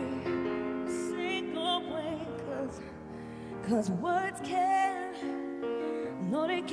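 A female singer singing a slow pop ballad live, with long held, wavering notes over sustained accompaniment chords.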